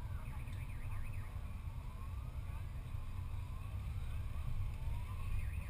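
A siren sounds in the traffic: a quick warbling yelp in the first second, then three slow rising wails. Under it runs the steady low rumble of the car driving.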